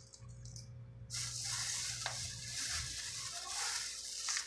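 Water-filled plastic fish bags crinkling and rustling as a hand handles them. The crackle starts about a second in and lasts about three seconds.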